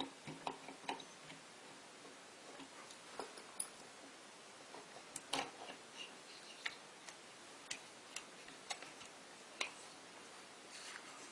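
Irregular light clicks and taps of small tools and parts being handled on a model locomotive under repair, a dozen or so sharp ticks spread unevenly, several close together at the start.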